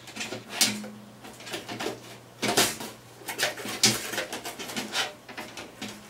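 Cooler Master modular power supply being slid and wiggled into the bottom of a PC case: irregular knocks, clicks and scrapes of the unit against the case, a few about half a second in and a quick cluster in the middle seconds, as it is worked into its brackets.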